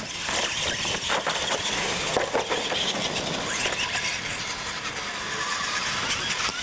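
Two radio-controlled monster trucks launching off the start line and racing on concrete, their motors and tyres making a steady, busy noise with a few short knocks.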